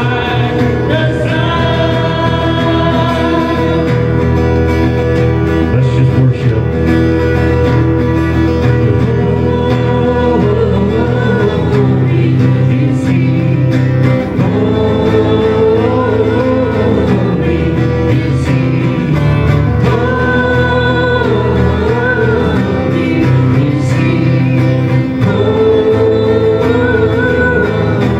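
Worship music: singing over a steady band accompaniment with guitar, playing without a break.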